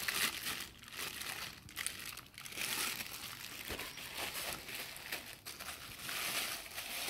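Clear plastic bags wrapped around microscope stand parts crinkling in irregular bursts as the parts are handled and moved about.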